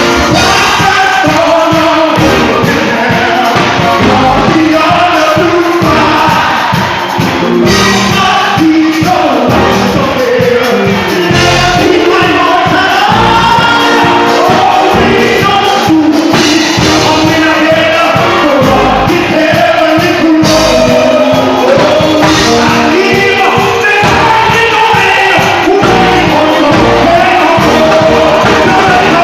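Live gospel praise and worship music: singers and a choir of voices over a band with a steady beat.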